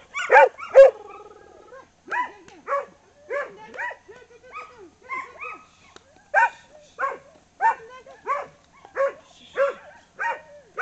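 Collie barking repeatedly while it chases and works sheep: short sharp barks at a steady pace of about one and a half a second, loudest near the start.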